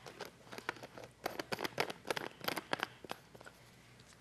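Short, irregular plastic clicks and scrapes as the blade cap of a personal blender is twisted onto its filled cup, thickest in the middle of the stretch.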